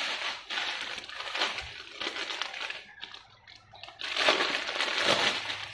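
Plastic garment packaging rustling and crinkling as it is handled, in uneven bursts, dipping quiet about three seconds in and loudest just after four seconds.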